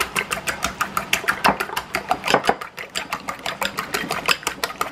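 Fork beating eggs in a ceramic bowl: a rapid, even clicking of the fork against the bowl, about eight strokes a second.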